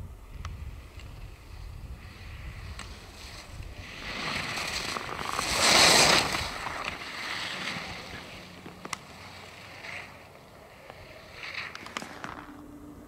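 Alpine skis carving a turn on packed snow: the scraping hiss of the edges swells to a loud peak about halfway through as the skier passes close, then fades.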